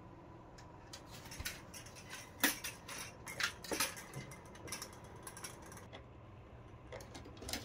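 Irregular light clicks and clacks of fishing rods being handled and set into the holders of a wall-mounted track rod rack. The loudest clacks come between about two and four seconds in.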